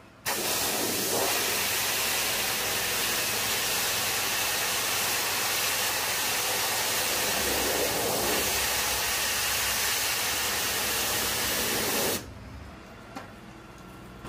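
Pressure washer jet spraying a perforated metal mesh panel: a loud, steady hiss that starts about a third of a second in and cuts off about twelve seconds in, leaving a quieter low hum.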